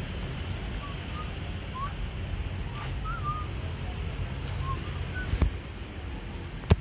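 Wind rumbling on the microphone, with scattered short bird chirps. Two sharp knocks near the end are the loudest sounds.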